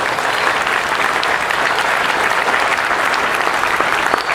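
An audience applauding: many hands clapping together in a dense, steady patter.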